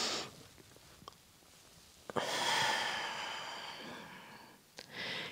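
A woman's breathing while doing abdominal crunches: a breath at the very start, then a long exhale that starts suddenly about two seconds in and fades away over a couple of seconds, and a short breath near the end.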